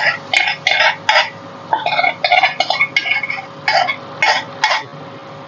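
A spoon stirring and scraping a pan of vegetables and cream sauce, in quick, uneven strokes. A faint steady hum runs underneath.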